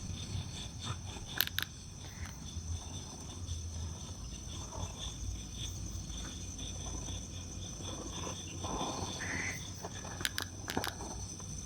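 Night insects, crickets among them, chirping in a steady high-pitched chorus, with a few sharp clicks about a second and a half in and again near the end.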